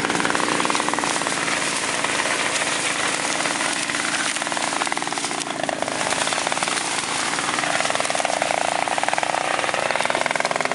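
Sugarcane harvester running steadily, its engine and cutting gear making a loud, fast, even rattling pulse.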